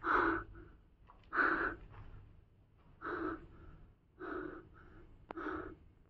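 A man breathing heavily and audibly: five loud breaths spaced about a second or so apart, with a single sharp click near the end.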